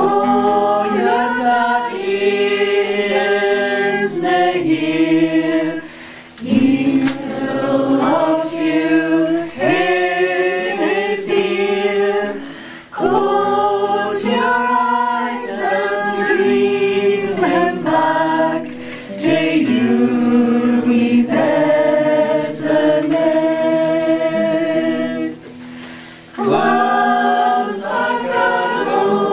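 Small mixed choir singing a slow lullaby in Scots, in sustained phrases of about six seconds with short breaks between them.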